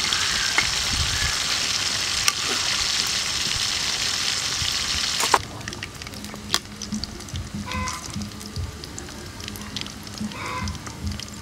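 Pork chops deep-frying in oil in a steel wok, a loud, dense sizzle with the odd click of metal tongs. About five seconds in it cuts off suddenly, giving way to a much quieter, sparse crackle of the oil with scattered clicks of the tongs.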